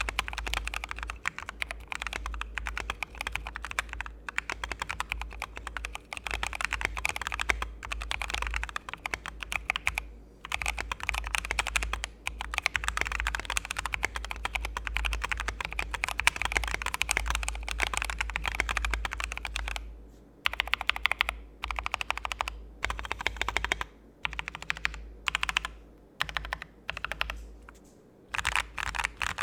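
Typing sound test on a modded Akko 96% mechanical keyboard with lubed Akko Jelly Blue tactile switches and OSA-profile keycaps, its case filled with Plastalina clay and tape-modded. Fast, steady typing with brief pauses about 10 and 20 seconds in, breaking into short bursts near the end.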